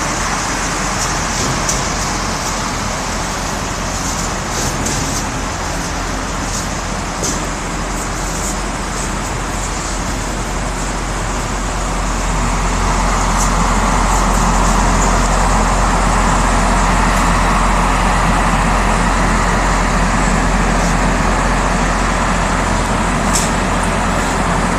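Automatic shrink-wrap packaging line running: the film cutting-and-sealing machine's steady mechanical noise with light repeated clicks. About twelve seconds in it gives way to the shrink tunnel's louder, steadier running hum.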